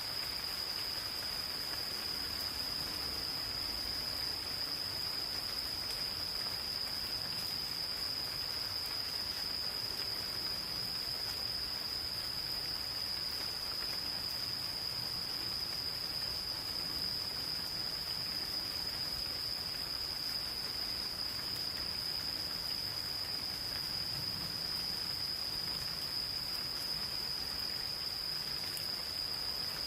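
Insects calling in one continuous, steady high-pitched trill, over gentle rain pattering in a forest.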